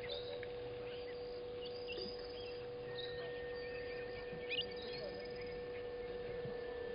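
Outdoor bush ambience at a waterhole: scattered short bird chirps and calls over a few steady, unchanging droning tones, with a higher steady tone joining about three seconds in.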